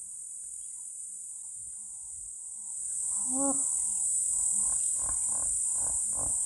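Hippopotamus calling: one short pitched note about three seconds in, then a run of deep honking grunts, about three a second. Insects shrill steadily throughout.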